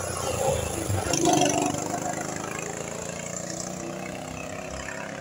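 Go-kart engine running as the kart passes close by, loudest about a second in, then fading as it drives off down the track.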